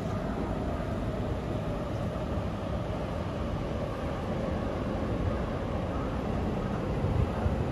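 City street ambience: a steady rumble of road traffic passing, with a low hum that drifts slowly in pitch.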